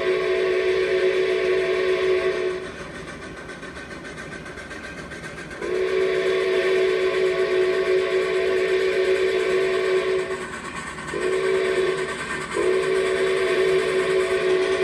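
C&O 614's multi-chime steam whistle sounding long, long, short, long, the grade-crossing signal. The first long blast is already going and stops about two and a half seconds in. After a gap of about three seconds a second long blast follows, then a short one, then a final long one that runs on. Each blast sounds several tones at once, over a steady hiss of steam.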